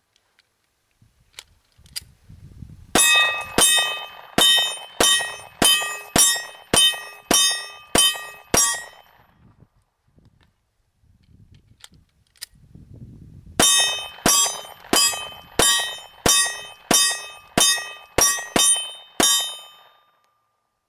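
Glock 26 Gen 4 9mm compact pistol firing two strings of about ten shots each, roughly one shot every 0.6 s, each shot with a metallic ring, with a pause of about five seconds between the strings. These are the new pistol's first rounds, and every round feeds reliably.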